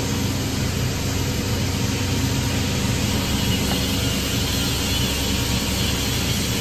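A steady, low engine drone that runs on without a break.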